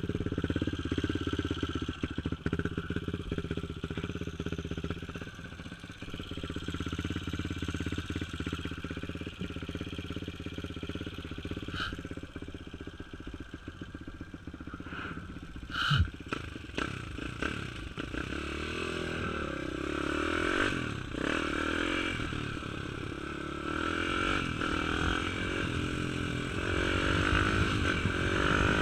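YCF Bigy pit bike's new Daytona 190 four-valve single-cylinder four-stroke engine, still being run in, idling steadily, with a single knock about halfway through. From a little past halfway the engine note rises and falls as the bike is ridden off at light throttle, getting louder near the end.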